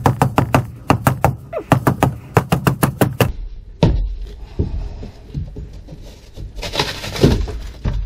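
A rapid run of sharp knocks, about four to five a second for some three seconds, as hands and tools break at old foam and fiberglass under a boat's dash. Then scattered thuds, and a scraping, tearing noise about seven seconds in as a block of foam is ripped free.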